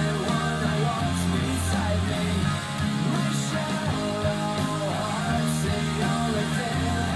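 Rock song with electric guitar and a strong, steady bass line, with no vocals in this stretch, played through a pair of Panasonic two-way bookshelf speakers (carbon woofer, quartz tweeter) driven by an X6 DAC, a tube preamp and a two-channel power amp. It is picked up by a phone in the room.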